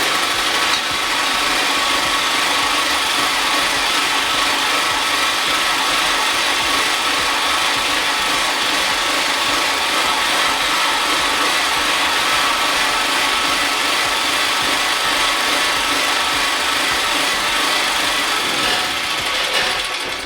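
Small 2 kW petrol generator engine running steadily, then dying away just before the end as it runs out of fuel.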